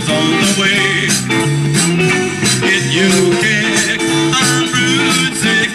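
Live band playing an upbeat rock and roll number: a lead vocal over electric guitar, upright bass and a steady drum beat.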